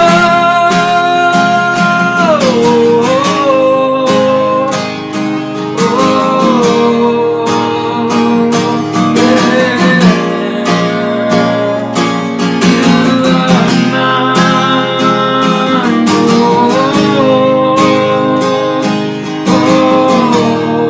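Acoustic guitar strummed steadily in a worship song's instrumental passage, with a melody line holding long notes about two seconds each and sliding between pitches over it.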